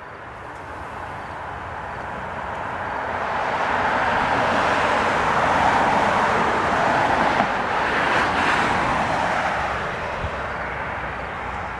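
The noise of a passing vehicle, swelling over about five seconds to a peak mid-way and then fading.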